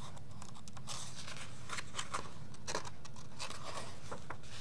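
A page of a hardcover picture book being handled and turned by hand: a run of short papery rustles and scrapes, over a steady low hum.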